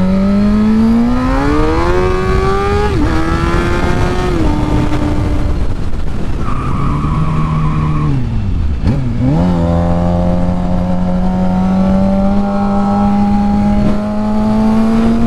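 Motorcycle engine under way, climbing in pitch as it accelerates through a gear, with a short drop about three seconds in. About nine seconds in it falls away sharply, then pulls up again in a long, slow rise.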